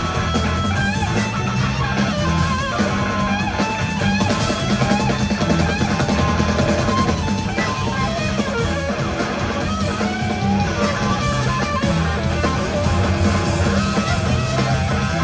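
Live blues-rock band playing: two electric guitars over two drum kits, with a wavering electric guitar lead line.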